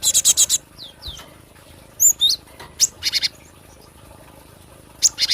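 Gelatik batu (cinereous tit) calling: quick bursts of four or five sharp repeated notes at the start, around the middle and near the end, with a few single slurred whistles between.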